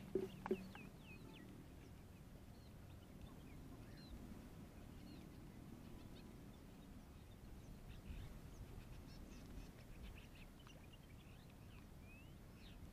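Quiet open-air ambience with faint, scattered short bird calls and chirps throughout. Two sharp clicks come right at the start, about half a second apart.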